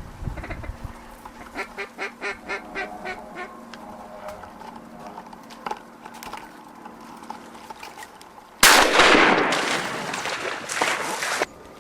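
Duck quacking: a quick run of about eight quacks at roughly four a second, then scattered quieter calls. Near the end, a sudden loud rushing noise lasts about three seconds and cuts off abruptly.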